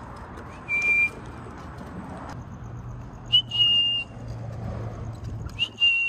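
A person whistling three short, level calling notes a couple of seconds apart, each opening with a quick upward slide; the second and third are a little higher than the first. These are whistles to call a lost African grey parrot.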